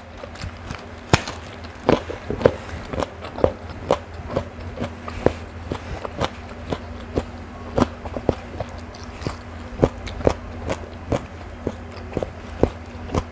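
A person biting and chewing raw vegetables, a small round green eggplant among them, making irregular crunches and clicks about one or two a second over a steady low hum.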